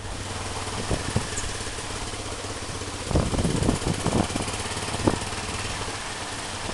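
A vehicle engine running steadily on a rough dirt road, with several short knocks and jolts, mostly about three to five seconds in.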